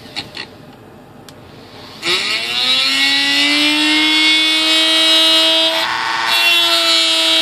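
A hand-held corded rotary tool, quiet apart from a few clicks at first, is switched on about two seconds in. It spins up with a rising whine and settles into a steady high-pitched whine while grinding hardened CA glue off a part inside a model glider's fuselage.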